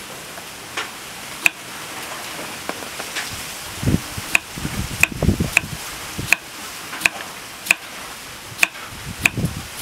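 Kitchen knife slicing cucumber on a wooden chopping board, a sharp knock each time the blade meets the board. A few scattered cuts at first, then a steady run of slices about two-thirds of a second apart from about four seconds in.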